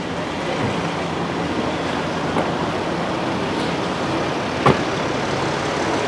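Street traffic noise: a steady hiss of passing vehicles, with a low engine hum in the first half and a single sharp click about three-quarters of the way through.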